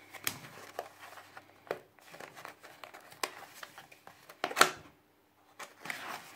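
Cardboard power-bank box being opened by hand: fingers scraping and tapping at the flap, with one sharp snap about four and a half seconds in, then a soft rustle near the end.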